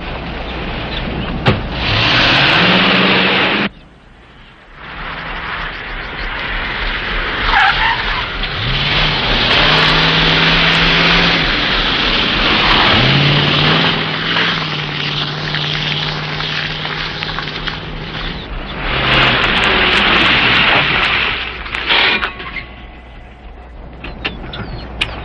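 Car engine accelerating hard during a chase, its pitch rising several times as it pulls through the gears, over a steady rush of road noise. The sound drops away briefly about four seconds in and eases off near the end.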